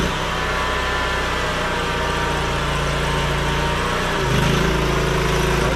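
Gas engine of an 8 gpm pressure washer running steadily; its note wavers briefly about four seconds in.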